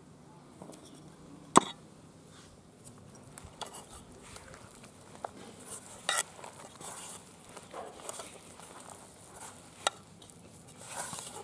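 Chapati dough being mixed in a bowl: intermittent stirring and scraping as wheat flour, milk and water are worked together. Occasional sharp clinks of a utensil on the bowl, the loudest about one and a half seconds in and another near the end.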